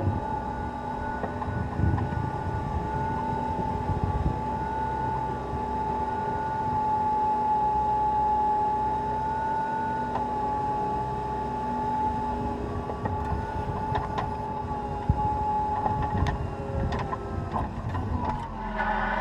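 Cat 236B skid steer loader's diesel engine running steadily under load, with a steady high whine over it. A few sharp knocks come in the last few seconds.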